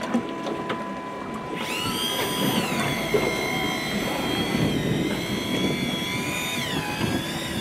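Electric fishing reel's motor whining as it winds in line under load on a bent rod. The whine starts about a second and a half in, rises in pitch and holds steady, then sags briefly near the end before picking up again, over wind and water noise.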